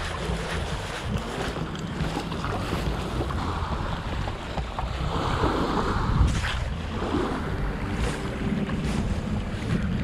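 Wind buffeting the microphone over small waves washing at the water's edge, with a few sharp clicks about six and eight seconds in.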